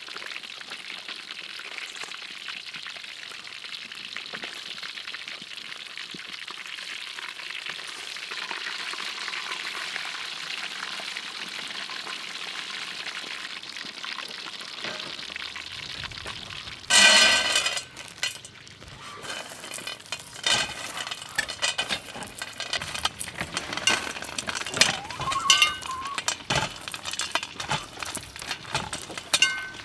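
Fish deep-frying in hot oil in a wok, a steady sizzle. About seventeen seconds in it gives way to a brief loud sound, then irregular clicks and small clinks as roasted peanuts are handled on a metal tray.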